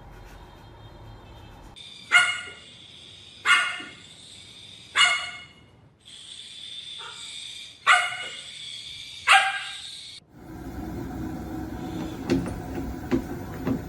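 A dog barking, five loud single barks about one and a half seconds apart, with a softer one between the third and fourth. Near the end the barking stops and a background hum with a few light clicks takes over.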